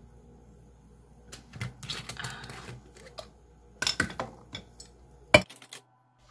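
Glass spice jars with plastic lids clinking and knocking against each other as they are handled in a plastic washbasin of soapy water, in scattered clusters of clicks with a brief watery sound about two seconds in. The loudest single click comes near the end.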